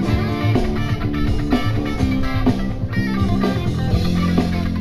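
Live band playing an instrumental passage: electric guitars, electric bass guitar and drum kit, with no singing.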